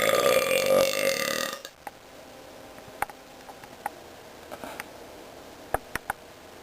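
A person's long burp, already under way, that stops about a second and a half in; then a few faint clicks.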